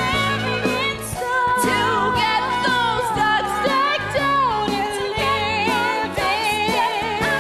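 Stage musical number: singing with vibrato over an instrumental accompaniment.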